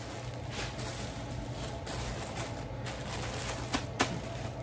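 Clothing and plastic packaging being handled, in scattered light rustles and clicks over a steady low hum.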